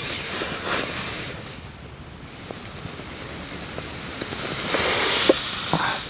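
Rushing, rustling noise inside a tent. It eases after about a second and swells again about five seconds in, with a few faint ticks.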